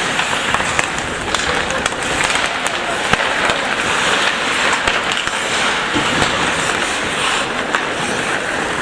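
Ice hockey play: skates scraping on the ice and sticks and puck clacking, with many sharp clicks over a steady din of voices in the rink.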